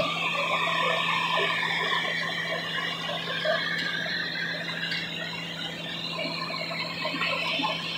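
Hydraulic rescue equipment running steadily at a car wreck, with a constant engine-like hum under a high, wavering squeal as firefighters work to cut open and free the crushed vehicles.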